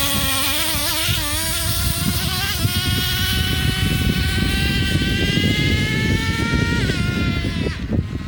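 Traxxas Revo's small nitro engine at high revs with a high buzzing whine. The pitch wavers at first, then climbs steadily as the truck runs on, and drops sharply twice near the end as the throttle is let off.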